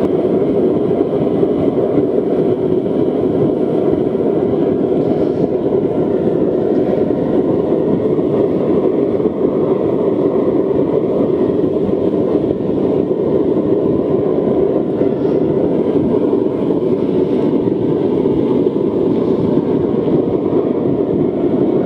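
Forced-air waste oil drip burner firing into a dirt furnace that is up to aluminium-melting heat: a continuous, loud rush of flame and blower air that stays steady throughout.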